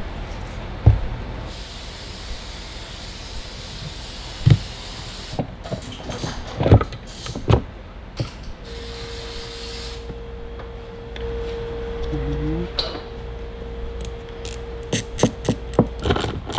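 Scattered knocks, taps and rubbing as a Ferrari 348 fuel pump assembly and its rubber gasket are handled on a wooden workbench, with denser clicking near the end. Two stretches of hiss and a faint steady hum run behind it.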